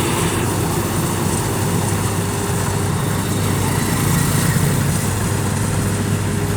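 Rice harvesting machine's engine running steadily with a constant hum and mechanical clatter.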